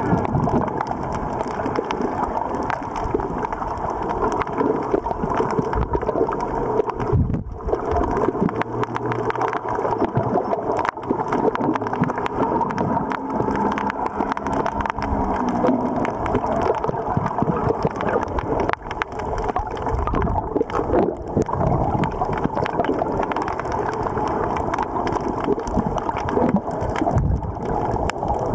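Shallow surf heard underwater: a steady, muffled rushing and surging of water over rocks, with constant crackling and clicking.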